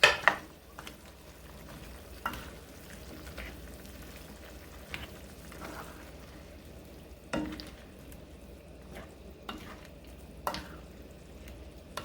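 Chopsuey vegetables cooking in a pan as bell peppers are added and stirred in: a low steady sizzle, with a utensil clacking against the pan now and then, loudest right at the start.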